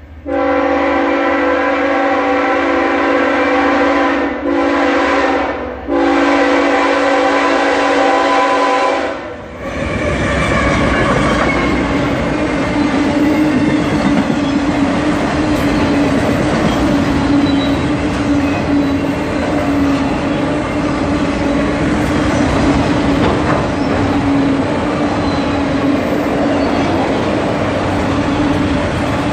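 A freight locomotive's air horn blows as the train approaches, in three blasts over the first nine seconds, the last one long. Then the steady rumble and clatter of a fast freight train of autorack car carriers rolling past close by, with a constant hum under it.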